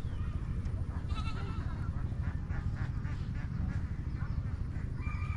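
Outdoor pond-side ambience: a steady low rumble with scattered faint animal calls in the background, including a brief rapid call about a second in and a short held call near the end.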